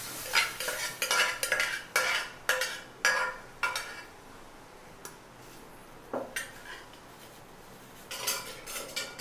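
A metal spoon scrapes and clinks against the pressure-cooker pot and the steel kadai as cooked goat trotters are scooped out into the masala. There is a run of sharp clinks about twice a second for the first few seconds, a quieter stretch, then more clinks near the end.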